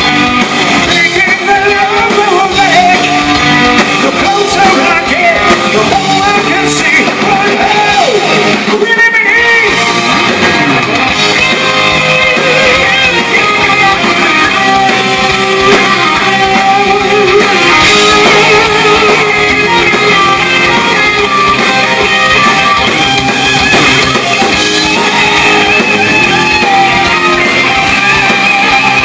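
Live hard rock band playing loud: electric guitars over drums and bass, with a brief drop-out of the drums and bass about nine seconds in.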